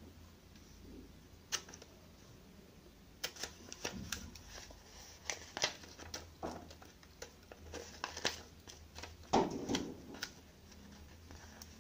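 Scissors snipping through a paper sewing pattern, an irregular run of short cuts with the paper rustling. The cuts are sparse at first and come thick and fast from about three seconds in.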